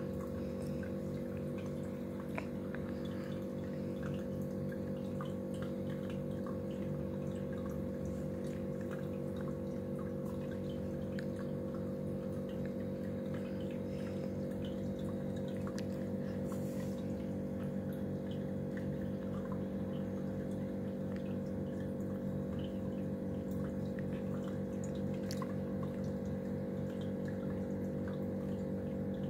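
Aquarium filter pump running with a steady electric hum, while water trickles and drips at the surface in small scattered splashes.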